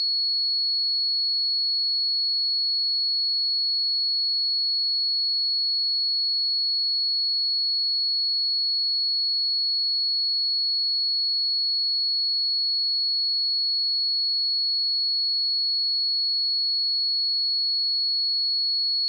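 A steady, unchanging pure sine-wave test tone at 4362 Hz, a single high-pitched whistle-like pitch held at constant level.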